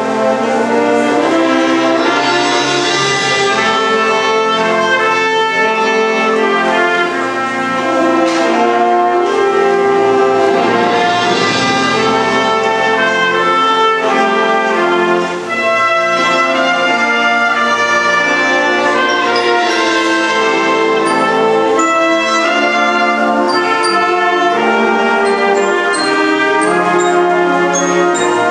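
Concert wind band playing a full-ensemble passage, with the brass prominent over sustained chords and moving lines.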